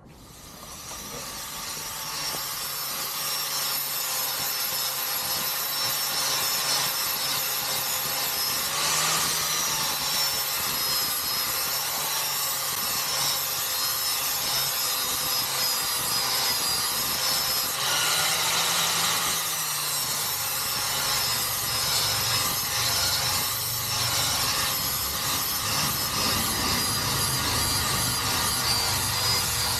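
Angle grinder with a Tiger abrasive disc grinding road rash off a vehicle wheel rim. A steady motor whine runs with a rough grinding hiss. It builds up over the first couple of seconds, and its pitch dips briefly now and then as the disc bears down on the rim.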